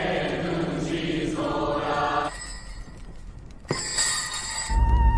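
Several voices chanting together for about two seconds, then dropping away. After a quieter moment comes a sharp click, then high held tones and a deep rumble that build near the end.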